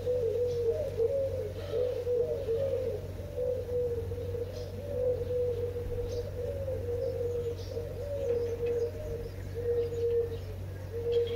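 Birds cooing: low, wavering coos around 500 Hz repeated almost without pause, sometimes overlapping, with a few faint high chirps. A steady low hum runs underneath.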